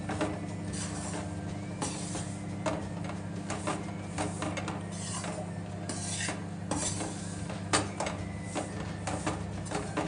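A metal spoon scraping and clinking against an aluminium kadhai in irregular strokes as wheat flour is stirred while it roasts in ghee, the sharpest knock about three-quarters of the way through. A steady low hum runs underneath.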